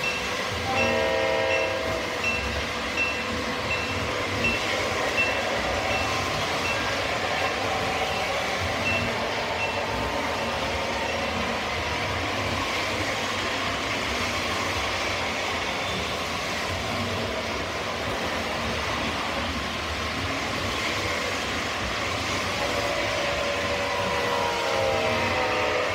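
O scale model trains running on the layout: a steady rumble of wheels and motors on the track, with a model diesel locomotive's horn sounding about a second in and horn tones again near the end.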